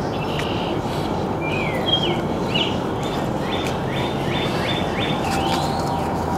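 A small bird calling over a steady low background rumble, with a few scattered chirps and then a quick run of about five repeated notes near the middle.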